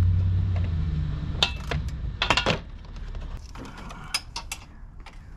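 Metal hand tools clinking and knocking against bolts and truck body parts: a few sharp clinks about a second and a half and two and a half seconds in, then a run of lighter clicks. A low hum fades out in the first second.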